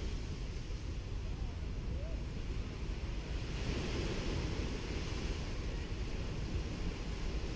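Gentle Caribbean Sea waves washing onto a sandy beach in a continuous hiss, with one wash swelling about halfway through. Wind rumbles on the microphone underneath.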